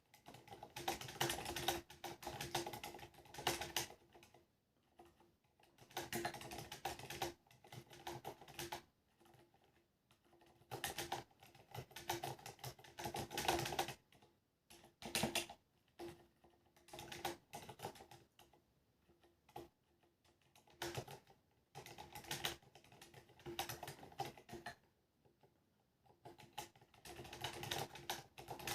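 Typing on a Ducky One 2 mechanical keyboard with Cherry MX Silent Black switches and ABS SA keycaps: runs of muted key clicks a few seconds long, broken by short pauses. The space bar is very rattly.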